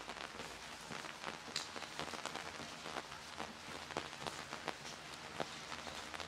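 Light rain falling on wet paving: a steady hiss with scattered, irregular drip clicks.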